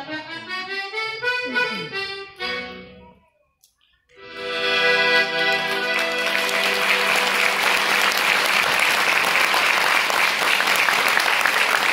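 Accordion playing a quick run of notes that stops about three seconds in. After a short pause a final chord is held, and loud audience applause rises over it and continues.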